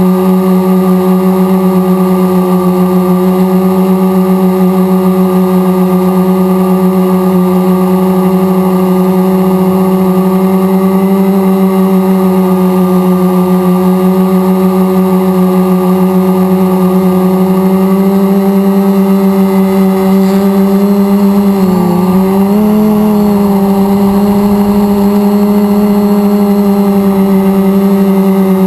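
Multirotor drone's electric motors and propellers whining steadily in flight, heard from a camera mounted on the drone. The pitch wavers and dips briefly about 22 seconds in and again near the end.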